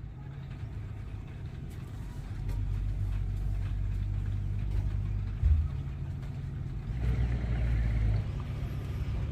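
A boat's engine running with a steady low hum that grows louder about two seconds in. There is a brief heavier knock about halfway through.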